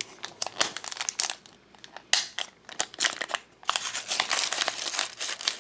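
Plastic blind-bag packaging crinkling, with small plastic clicks and taps as a miniature toy is handled; the crinkling gets denser in the second half.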